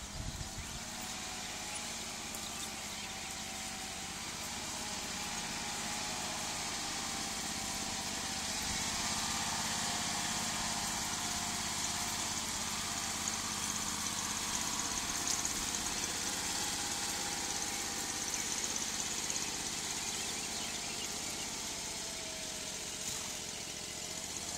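John Deere Gator utility vehicle's engine running steadily as it drives slowly over grass, with a faint wavering whine, growing a little louder in the middle.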